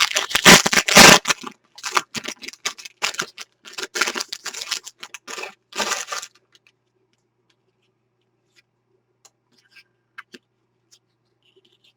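Trading cards and their packaging being handled: a quick run of rustling, scraping and clicking for about six seconds, then only a few faint ticks.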